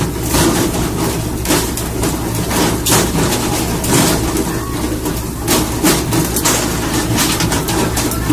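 Boat engine running steadily with a low drone, with repeated short, sharp noises over it.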